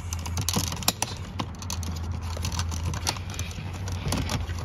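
Scattered sharp plastic clicks and taps as a power seat switch panel is pressed into the seat's side trim and its clips snap into place, over a steady low hum.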